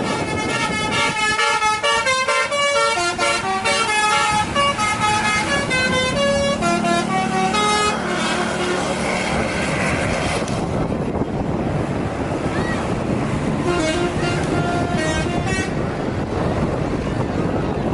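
Bus 'telolet' musical air horn (basuri type) playing a fast tune of stepped notes for about eight seconds. A rushing noise follows, then a shorter run of notes a few seconds later.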